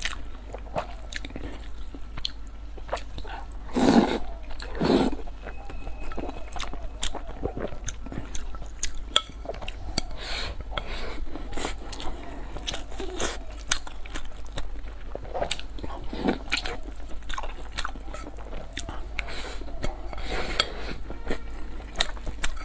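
Close-miked eating sounds: chewing and biting on sauce-braised meat and rice, with many small wet clicks. Two louder mouth sounds come about four and five seconds in.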